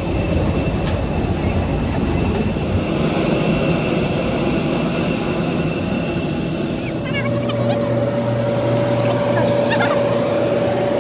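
Steady whine and rumble of aircraft engines on an airport apron. The pitch of the hum changes suddenly about seven seconds in, from high whines to a lower steady drone.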